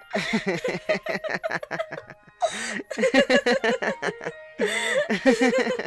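Laughter in three bouts of quick, repeated voiced pulses, over soft background music.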